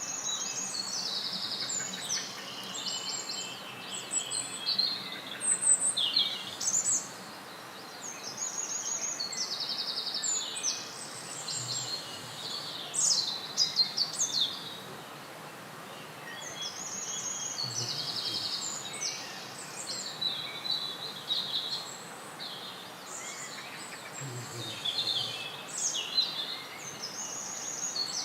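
Songbirds singing: a continuous run of short, varied high chirps and rapid trills, some buzzy, following one another almost without pause, over a steady faint background hiss.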